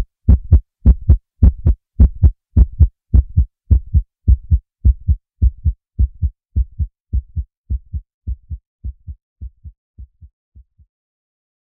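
Heartbeat sound effect: a steady lub-dub of paired low thumps. It turns duller about four seconds in, then fades gradually and dies away shortly before the end.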